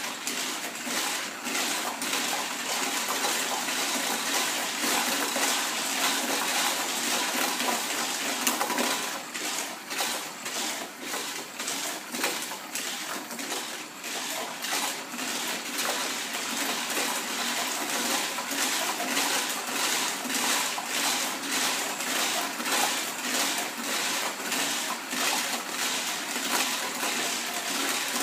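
Hot Wheels Sizzler cars running around a short plastic oval track, their small electric motors and wheels making a steady high whirring hiss. From about a third of the way in, the sound pulses in quick regular beats as the cars lap the track.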